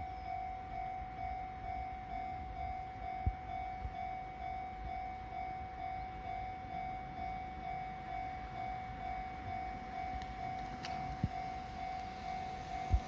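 Japanese railway level-crossing warning bell ringing, a steady evenly repeating electronic ding, with a low rumble and a few low thumps underneath.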